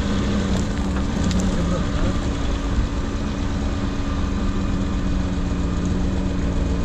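Four-wheel-drive vehicle's engine running steadily, a constant low hum over a rumble.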